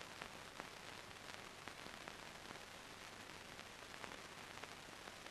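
Near silence: the faint steady hiss of an old film soundtrack, with scattered faint crackles.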